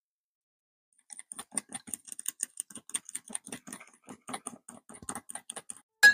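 Metal fork clinking rapidly against a glass bowl while stirring cake batter, several clinks a second, with one louder, sharper clink near the end.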